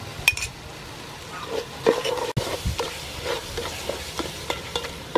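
A utensil stirring and scraping a curry spice paste as it fries in oil in a pot, in repeated short strokes over a low sizzle; the paste is being cooked with its seasonings before the chicken goes in.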